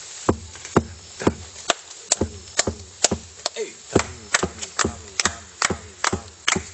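A steady series of sharp knocks, about two a second.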